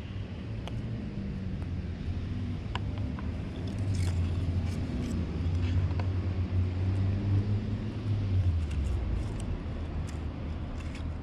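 An engine running with a low, steady hum that drops in pitch about eight and a half seconds in, with a few faint clicks over it.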